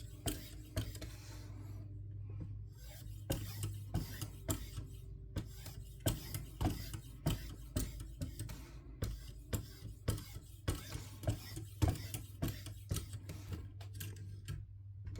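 Strop charged with 6-micron diamond emulsion on a KME guided knife sharpener, stroked back and forth along a clamped knife edge, each stroke giving a short light click, roughly two a second, over a steady low hum. This is the final stropping stage after the 600-grit stone.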